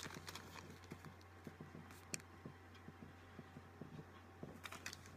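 Near silence: faint scattered small clicks of beaded earrings being handled, one sharper click about two seconds in, over a steady low hum.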